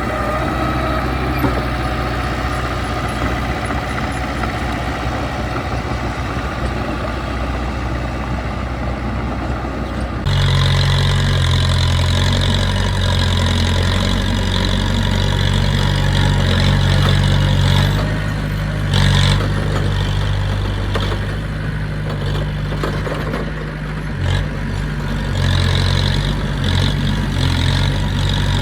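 Heavy diesel construction machinery engine running steadily. About ten seconds in, the sound switches abruptly to a louder, deeper engine note. A brief clank comes about two-thirds of the way through.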